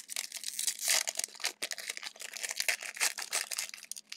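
Plastic trading-card pack wrappers being torn open and crinkled, a dense, irregular crackling.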